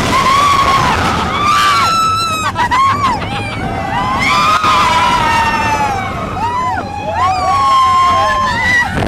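Several roller-coaster riders screaming together, long screams that rise and fall in pitch, over the steady rush and rumble of the moving train.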